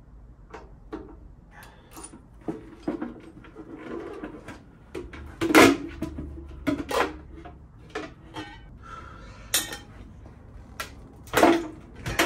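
Hand tools and metal hardware clinking and clanking against a Harley-Davidson Softail's front fender and wheel parts as the front end is taken apart: a string of irregular sharp knocks, the loudest about five and a half seconds in and again near the end.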